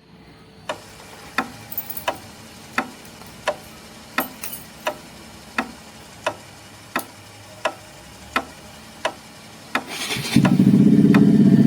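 A motorcycle engine idles with a low steady hum while a turn-signal indicator ticks evenly, about one and a half ticks a second. Near the end a much louder low sound comes in over it.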